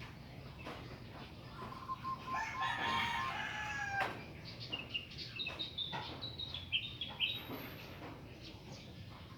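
A rooster crows once in one long call of about two seconds, dropping in pitch as it ends. A run of short, high chirps from a small bird follows.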